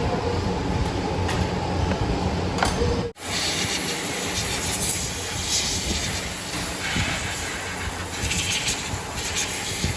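Steady hissing workshop noise with a low hum underneath, broken by a sudden cut about three seconds in.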